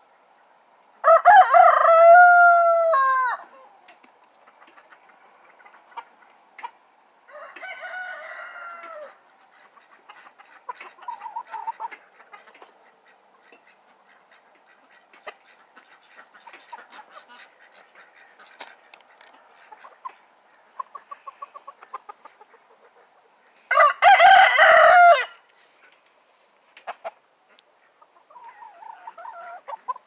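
Roosters crowing: a long, loud crow about a second in, a fainter crow a few seconds later, and another loud crow about three-quarters of the way through, with soft clucking and scratching from the flock in between.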